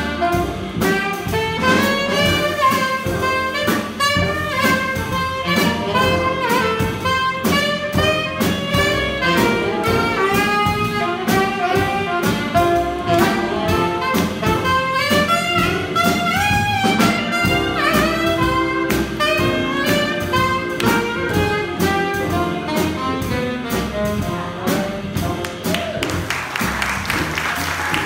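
Jazz combo playing a blues: an alto saxophone solo over piano, keyboard, upright bass and drums. Applause comes in near the end as the solo finishes.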